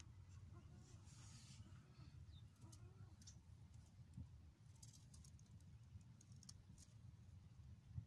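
Near silence: a faint low rumble with a few scattered faint clicks.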